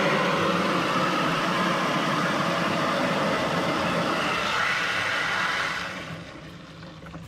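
Water from a garden hose pouring into the plastic tank of an Oregon 20-litre knapsack sprayer, a steady rushing that dies away about six seconds in.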